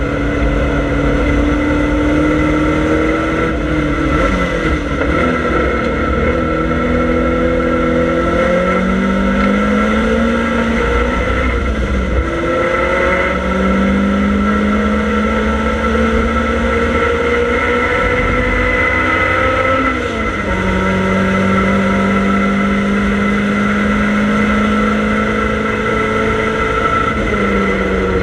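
Triumph Dolomite Sprint's slant-four engine at racing speed, heard from inside the cabin: its pitch climbs steadily for several seconds at a time, then falls back sharply as the driver changes gear or lifts, four or five times over, with steady road and wind noise underneath.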